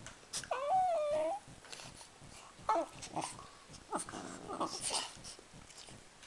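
A French bulldog and a Maltese terrier play-wrestling: one of the dogs gives a long, wavering whine about half a second in, then a few short whimpers around three seconds in, with short noisy breaths and scuffles after.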